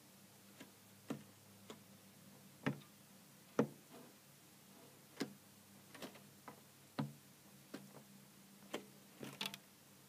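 Irregular sharp taps of a great spotted woodpecker pecking at peanuts in a wire-mesh feeder, one or two a second, with a quick flurry near the end.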